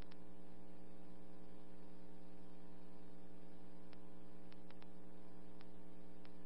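Steady electrical hum with a stack of even overtones on a police radio dispatch recording, in the gap between transmissions, with a few faint ticks in the second half.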